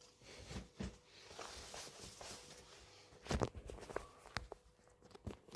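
Faint rustling of a cotton t-shirt being handled and worn, with a few soft knocks and one louder thump about three and a half seconds in.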